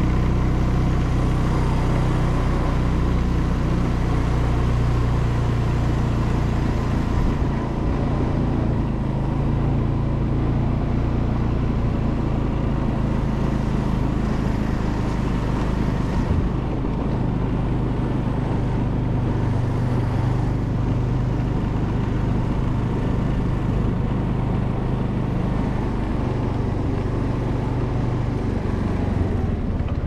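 A motor vehicle's engine running steadily with a low hum, under road noise.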